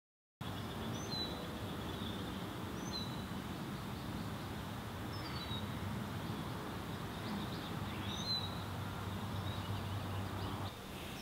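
Outdoor ambience: a steady low background hum with birds chirping briefly now and then. It starts abruptly out of silence just after the start.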